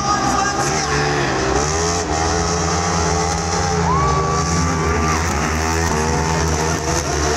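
Motorcycle engines running hard as the motorbike-drawn chariots race past on the dirt track, a steady loud drone with shifting pitches. About four seconds in, a higher tone holds for about a second.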